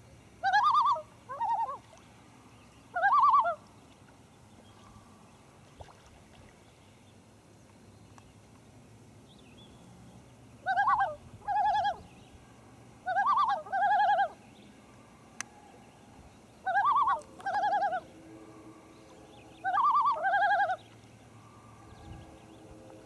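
Common loons giving tremolo calls: loud, rapidly quavering, laugh-like notes, mostly in pairs, in six bouts with a long quiet gap after the first three calls.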